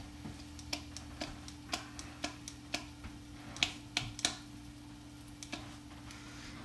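Metal kitchen tongs with red tips being snapped open and shut, a string of sharp clicks about twice a second that thins out after about four seconds, over a steady hum.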